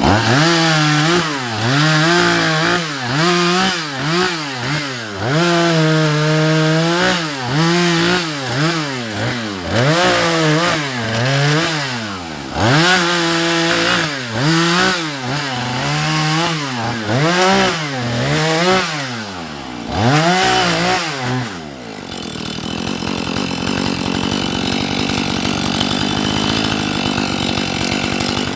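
Husqvarna 435 two-stroke chainsaw cutting into a tree, revving up and down again and again and sometimes held high for a second or two. About 22 seconds in the engine drops back to a lower, steady running.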